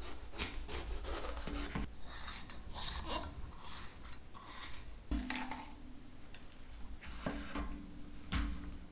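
Chef's knife slicing through a green bell pepper and knocking on a wooden cutting board: an irregular run of short cuts and knocks.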